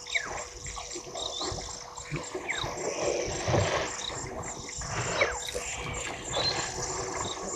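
Elephants drinking at a waterhole: water splashing and trickling as they draw it up in their trunks, over steady insect chirring. A few high whistled calls fall in pitch, spaced a couple of seconds apart.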